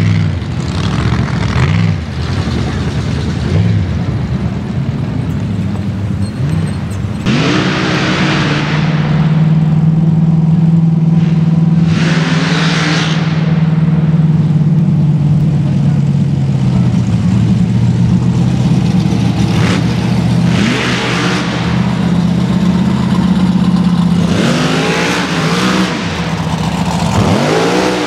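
Mega mud truck's engine revving hard on a mud-racing run, its pitch climbing and dropping again and again, with four louder surges spread through.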